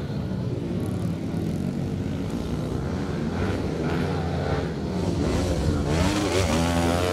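Motocross dirt bike engines running hard and revving up and down as riders race round the dirt track. The engine sound grows louder about six seconds in, as a bike comes up over a jump.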